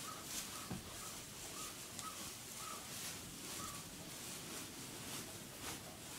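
Wild boar rooting with its snout through straw bedding, the straw rustling. A run of short, high peeps comes about twice a second and stops about four seconds in.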